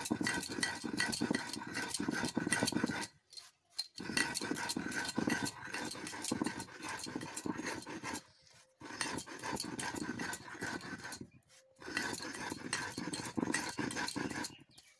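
Stone roller rubbing granulated sugar on a flat grinding stone (shil-nora): a gritty, crunching scrape as the crystals are crushed to powder, in spells of a few seconds that stop briefly three times.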